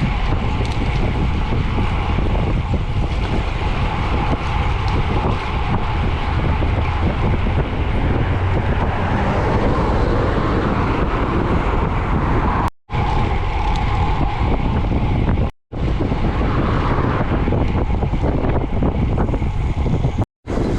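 Wind rushing over the microphone of a camera riding along on a bicycle, a loud steady roar. The sound cuts out abruptly three times for a moment: about two thirds of the way in, a few seconds later, and near the end.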